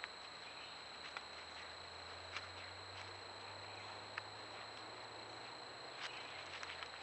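Faint, scattered clicks and crackles of an animal stepping through dry leaf litter, coming more thickly near the end, over a steady high-pitched whine.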